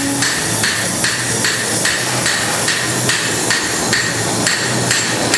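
Bronze cymbals being hand-hammered: steady, evenly spaced hammer blows on cast cymbal bronze, about two to three strikes a second, each one ringing out briefly.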